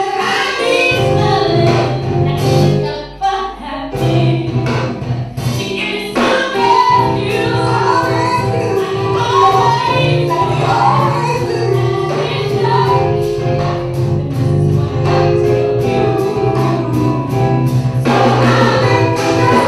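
Live band playing a song with a female lead singer on a microphone, backing singers, keyboards, guitar and drums.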